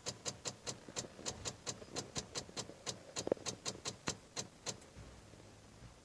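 Rapid, uneven clicking from a 2017 Nissan Qashqai's electrics, about five clicks a second, stopping near the end. This 'Morse code' chatter comes with flashing lights and is the sign of a completely flat car battery.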